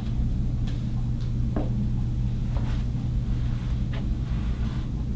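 Steady low hum, with a few faint clicks over it.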